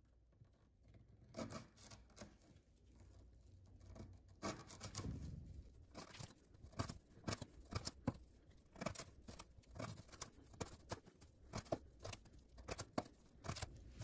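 Folding knife blade slicing through 3/8-inch twisted sisal rope, one short sharp snip per cut. The cuts are sparse at first and come about twice a second from about four seconds in. The blade is still cutting cleanly.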